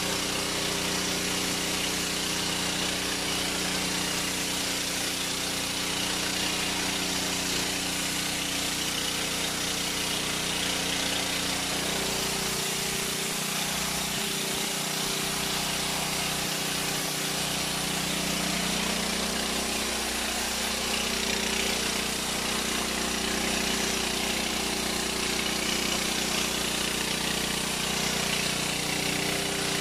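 Ferrex petrol high-pressure washer running steadily: an even engine drone with an unchanging pitch under the hiss of the water jet spraying on paving tiles.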